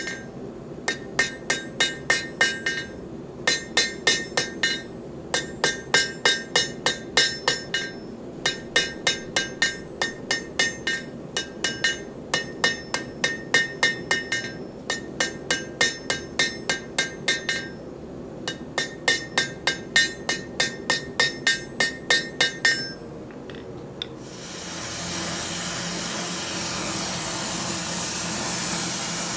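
Hand hammer striking a red-hot Damascus steel bar on the anvil horn, in runs of quick blows with short pauses, each blow ringing off the anvil; the smith is rounding the muzzle of a forged horse head. About 24 seconds in the hammering has stopped and a gas torch flame sets in with a loud steady hiss.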